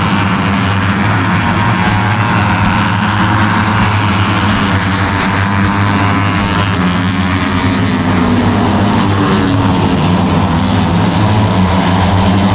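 Motorcycle engines running, a loud continuous drone with a steady low hum and a dense high whine above it.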